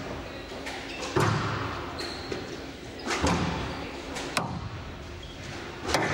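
Squash rally: the ball cracking off rackets and the court walls, a sharp hit every one to two seconds, the loudest about a second in, about three seconds in and near the end.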